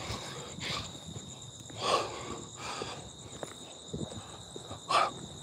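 Insects chirping steadily in a high, even drone, with two soft swishing noises, about two seconds in and again near the end.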